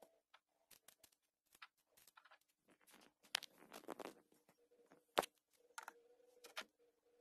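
Faint scattered clicks, taps and rustles of hands handling the tied streamer flies, a felt-tip marker and their plastic package on the desk, with one sharper click about five seconds in. A faint steady hum runs underneath.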